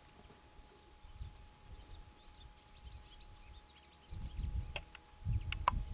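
Corn crake calling: a quiet run of short, dry rasping strokes. About four seconds in, low rumbles and a couple of clicks on the microphone take over and are the loudest sound.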